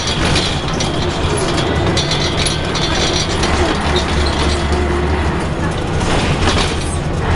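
Inside a moving Scania L113CRL single-deck bus: a steady low drone from the diesel engine under road and tyre noise, with the interior panels and fittings rattling and clicking.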